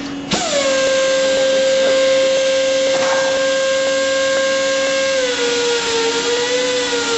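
Air-powered Esco Prepzilla pipe beveler running on a steel pipe end: a steady motor whine over a hiss of air. About five seconds in the whine drops in pitch and keeps sagging as the motor slows under the cut, working on a 1/4-inch air line with limited air flow.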